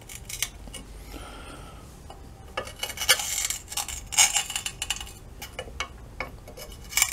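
Metal clicks and clinks of slip-joint pliers and a wrench gripping and working a silver-soldered nut on a broken stainless bolt in an aluminium sterndrive gearcase, testing how hard the bolt will turn. The clicks come in short runs, loudest about three, four and seven seconds in.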